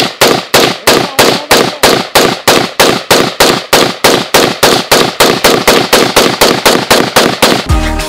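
AR-15-style rifle fired in a long string of rapid, evenly spaced shots, about four a second. Music starts just before the end.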